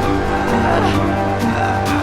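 Background music: steady held tones over a continuous low bass.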